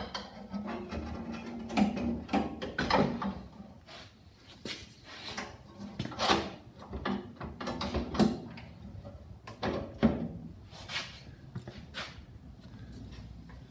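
Irregular knocks, clatters and scrapes of an Ingersoll garden tractor's hood being handled and worked back into place on the tractor.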